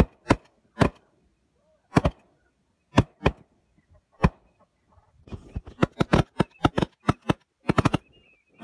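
Shotguns firing at a flock of flushed ducks. A few separate shots come in the first half, then a rapid, dense volley of many overlapping shots from about five seconds in, more than one gun could fire.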